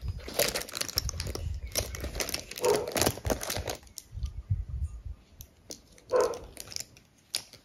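Makeup brush handles clicking and rattling against each other as a hand rummages through a zippered cosmetic pouch. The clicks come thick in the first four seconds, then only a few scattered ones.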